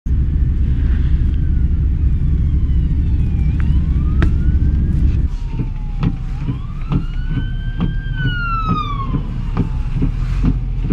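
Emergency vehicle siren wailing in slow rising and falling sweeps over a heavy low rumble. Sharp clicks come repeatedly from about halfway through.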